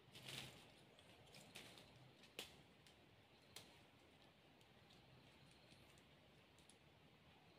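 Near silence with a few faint clicks and crackles in the first four seconds, from sticks and dry leaves being handled while a stick trap is built.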